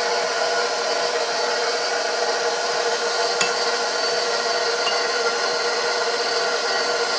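KitchenAid Professional 5 Plus stand mixer running steadily at low speed, its motor humming as the spiral dough hook churns through mostly dry flour, with a scraping, rasping sound. A single short click about three seconds in.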